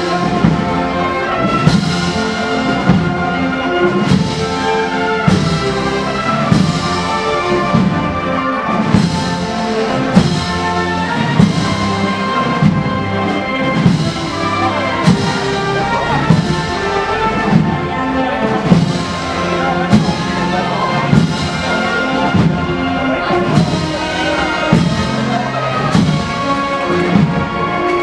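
Spanish wind band (banda de música) playing a slow processional march, brass carrying the melody over a steady drum beat about once a second.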